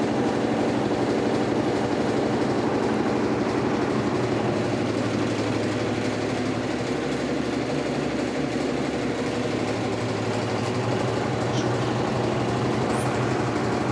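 Electrolux Turbo Economia LTE12 top-loading washing machine running, its motor humming steadily.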